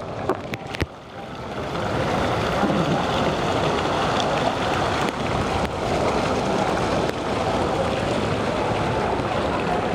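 Steady rushing of water churning along the hull of the Oasis of the Seas cruise ship under way, mixed with wind on the microphone. A few sharp handling clicks in the first second, then the rush builds and holds steady.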